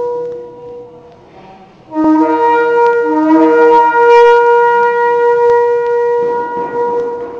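Shofar blasts from a freshly tuned and reworked ram's-horn style instrument: a held note fades out in the first second, then about two seconds in a new blast starts on a lower note and leaps up to a higher one, breaking briefly twice, held for about four seconds and ending in a breathy rush of air.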